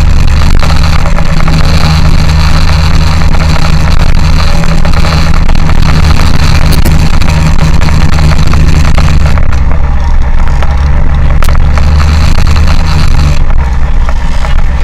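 Engine running loud and close at a steady, unchanging speed, a constant low hum with a noisy mechanical wash over it.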